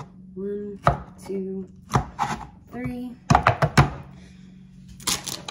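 Pampered Chef Cup Slicer, a clear plastic cup with a serrated blade lid, knocking and clicking on a cutting board as cherry tomatoes are loaded and the lid is pressed down through them. There are a few separate sharp knocks, a quick run of clicks and cuts about three and a half seconds in, and a couple more near the end.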